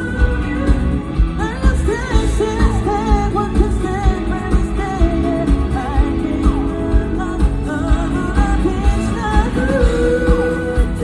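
A pop-rock band playing live, with a male lead vocal over a steady drum beat of about two hits a second.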